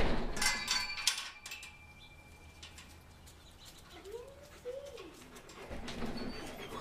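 Metal gate latch clanking and a chain-link gate rattling as a dog works the latch open with its mouth and pushes through, with a short metallic ringing over the first second or so. About four seconds in comes a faint short call that rises and falls in pitch.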